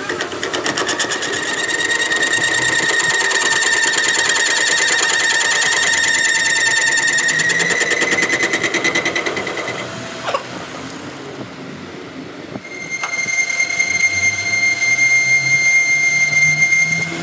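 Metal lathe boring out the inside of a flanged truck-axle part, the tool bit squealing with a steady high whine over a fast, even chatter. Past the middle the cut eases off for a couple of seconds with a single click, then the squeal returns as a steadier, purer whistle.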